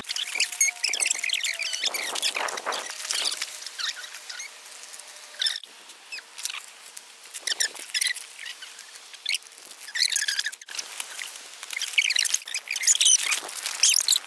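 Small songbirds chirping and singing, many short high twittering calls overlapping throughout.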